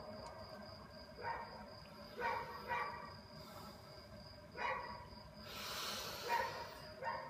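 About six faint, short bark-like animal calls, scattered irregularly, over a faint steady high whine; the echo of the last sung phrase dies away at the start.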